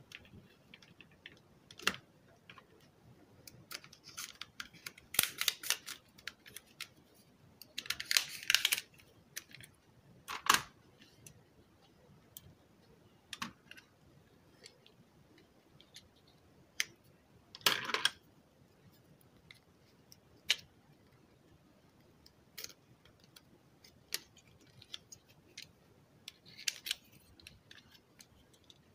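Hard plastic clicks, snaps and rattles as a car stereo's detachable faceplate is pried apart with a screwdriver and its circuit board handled, irregular and scattered, with a few louder bunches of clatter.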